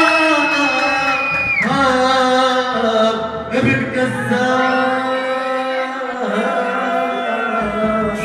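A male singer singing an Arabic song live into a microphone over amplified music, holding long notes that slide from one pitch to the next.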